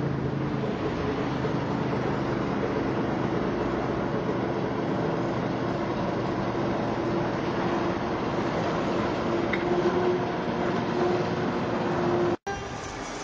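Small four-wheeled diesel shunting locomotive's engine running steadily, with a low hum that comes up in the later part. The sound breaks off abruptly shortly before the end.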